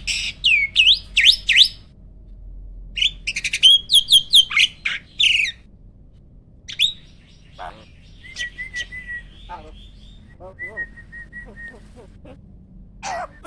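Jalak (starling) calling: two loud bouts of rapid sweeping whistles and harsh squawks in the first half, then quieter scattered chatter and short calls, with one louder call near the end.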